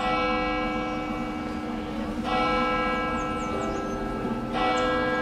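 Church bells ringing, a fresh strike about every two seconds with long ringing tones between.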